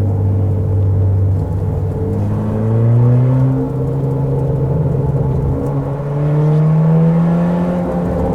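Car engine and exhaust under load on a winding road. The revs climb about two seconds in, drop back near four seconds, and climb again from about six seconds. The exhaust is louder than normal because the rear silencer (back box) has fallen off.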